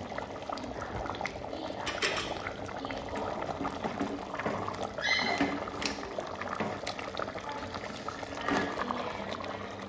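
Meat curry bubbling in a metal pot on the stove while a ladle stirs through it, with a few clinks and scrapes of the ladle against the pot.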